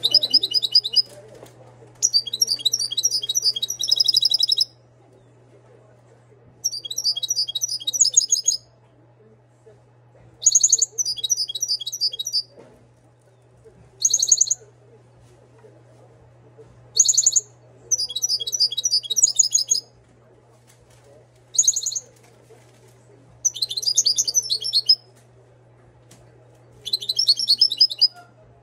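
Moroccan goldfinch (European goldfinch) singing: about ten bursts of rapid, high twittering song, each from half a second to about two and a half seconds long, with pauses between them. A steady low hum runs underneath.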